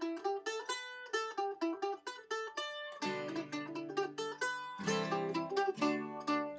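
Background music: a quick melody of plucked-string notes, with lower sustained chords joining about three seconds in.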